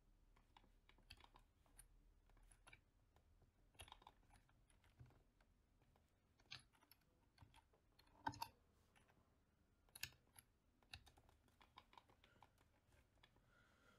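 Faint, irregular clicking of a computer keyboard and mouse, a few keystrokes at a time, with the loudest cluster about eight seconds in.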